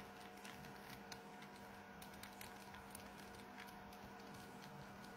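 Faint light clicks and taps of fingers handling a disassembled smartphone, scattered irregularly every half second or so, over a steady faint hum.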